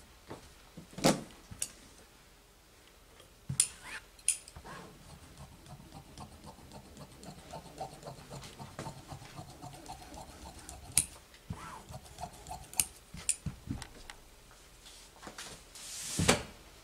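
Fabric shears cutting through fusible interfacing around collar pieces on a cutting table, with sharp blade snips and the rustle of fabric and interfacing being handled; a louder rustle near the end as the pieces are gathered up.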